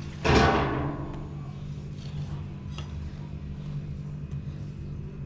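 About a third of a second in, one loud deep boom hits and dies away over about a second, over a steady low hum. After it come a few faint taps of a knife cutting dough on a stone countertop.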